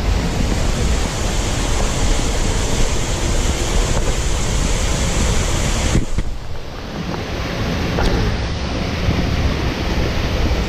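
Steady rush of a spring-fed waterfall falling into a pool. The upper hiss briefly dips about six seconds in.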